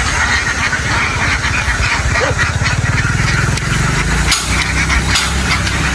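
A large flock of ducks quacking in a dense, continuous chorus, over the steady low pulsing of a boat engine that grows stronger about two seconds in.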